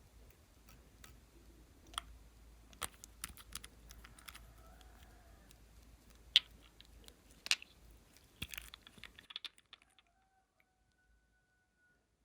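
Irregular sharp clicks and taps of glossy slime and small items being handled and mixed, the loudest about six and seven and a half seconds in. The sound cuts to near silence about nine and a half seconds in.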